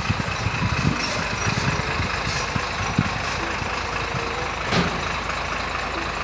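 Steady idling truck-engine sound with an irregular low rumble and crackle.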